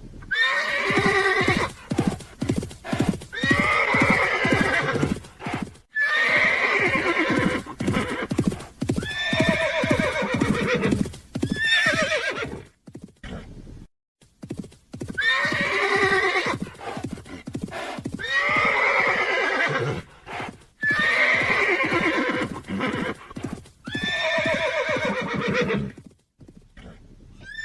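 A horse whinnying over and over, a run of long shaky neighs, each falling off at its end, with a short pause about halfway through.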